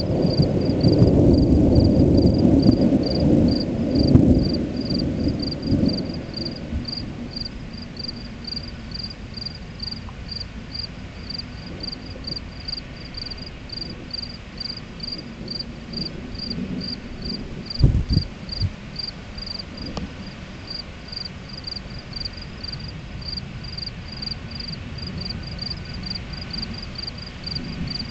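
Thunder rumbling and dying away over the first several seconds, with field crickets chirping steadily in an even rhythm throughout. A brief low thump about eighteen seconds in.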